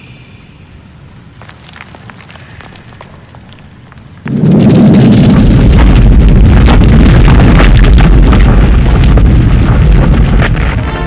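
A few seconds of faint crackling, then about four seconds in a sudden loud, low rumble starts and keeps going, easing off near the end: the sound effect of a large boulder rolling down a rock tunnel.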